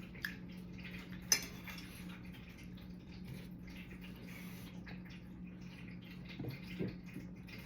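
Cutlery clinking on a plate: a small click at the start, one sharper clink about a second and a half in, and a couple of faint knocks near the end, over a low steady hum.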